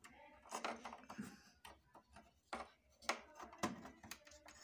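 Scattered small clicks, taps and scrapes of a plastic USB pen drive being fumbled against the back panel of an LG TV and pushed into its USB port.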